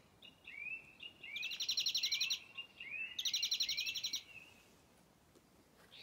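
European greenfinch song played from a recording inside a soft-toy bird: two bursts of rapid trilling, each about a second long, among short rising twittering notes, dying away after about four and a half seconds. The song is quite noisy.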